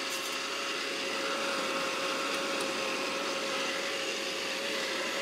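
Vitamix blender motor running steadily, blending a thick cherry, balsamic and honey purée, with an even whirring hum and a steady whine.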